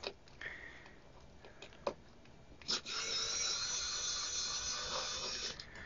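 Kaiweets ES20 electric precision screwdriver running and turning a small screw in a metal instrument case. A click about halfway in is followed by a steady high motor whine lasting about two and a half seconds, which stops shortly before the end. A few faint ticks come before it.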